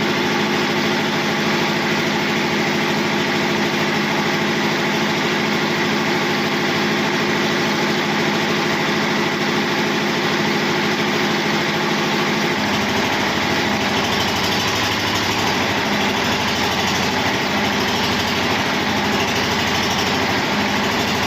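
An engine running steadily at idle, its low note changing about twelve seconds in.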